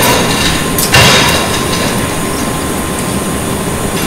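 Chain hoist lowering a stainless-steel wire basket of aluminium propeller blades into a nitric acid tank: a steady mechanical rumble with a loud metal clank about a second in. The liquid churns as the basket goes under.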